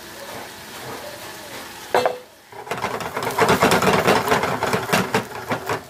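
Broccoli sizzling in garlic oil in a frying pan. About three seconds in, a utensil starts tossing it, with rapid clatter and scraping against the pan.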